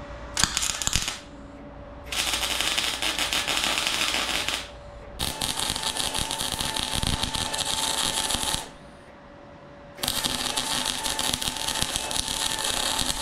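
Arc welding on steel: the arc crackles and sputters steadily in three runs of about two and a half to three and a half seconds each, with short pauses between them.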